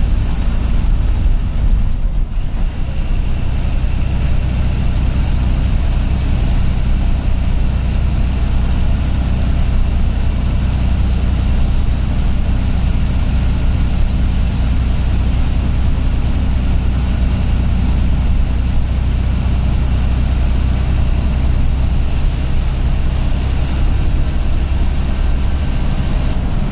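Ashok Leyland bus's diesel engine running steadily under way, heard from inside the cab beside the driver, a constant low drone over road noise.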